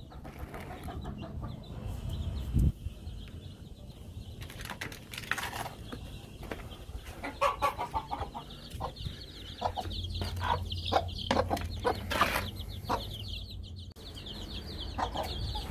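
Hen clucking among her young chicks, whose high, rapid peeping runs on beneath the clucks. There is a single low thump about two and a half seconds in.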